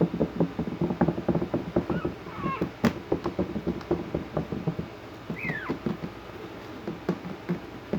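Young puppies whimpering twice, brief high cries with the second falling in pitch, over a constant patter of small scratching and scrabbling as they move about.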